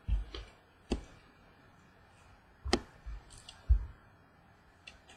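A handful of light clicks and soft low thumps at uneven intervals, from trading cards and their packaging being handled on a table.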